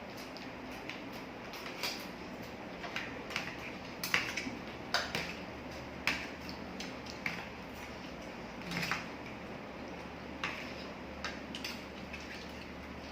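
Cutlery and dishes clinking and clacking in irregular short, sharp knocks, the loudest about four, five and six seconds in.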